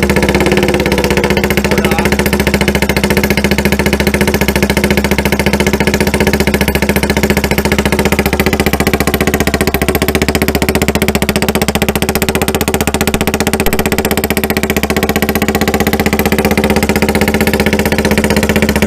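Mini bike engine running steadily at a constant idle, just started with the choke pulled out. The exhaust is loud.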